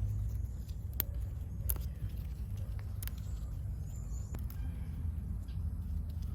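Outdoor ambience: a steady low rumble with a few scattered sharp clicks and a brief high chirp about four seconds in.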